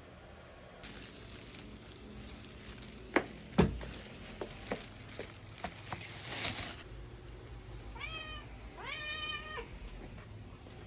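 A domestic cat meows twice near the end, the second meow longer. Before that comes a steady hiss with a handful of knocks and clicks, the loudest two about three seconds in.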